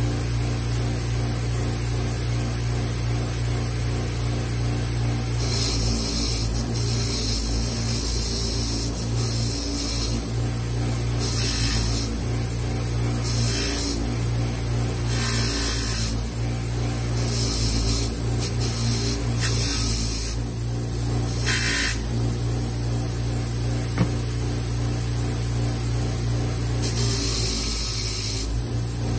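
Bench grinder with a wire wheel running steadily, its motor humming, while small bolts are pressed against the spinning wire brush again and again; each contact gives a scratchy hiss lasting about a second, about ten times, as rust and grime are brushed off the bolts.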